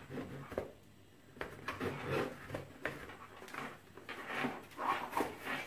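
Crivit open-face motorcycle helmet being handled and turned in the hands: scattered light clicks, knocks and rubbing of its hard shell and clear visor.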